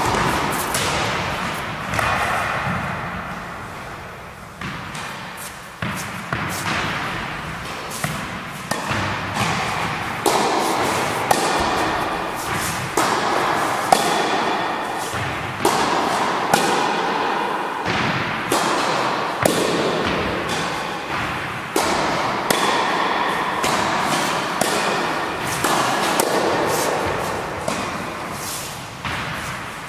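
Tennis balls struck by rackets and bouncing on a wooden gym floor during a rally. The sharp hits and bounces come about every second, each echoing in the hall.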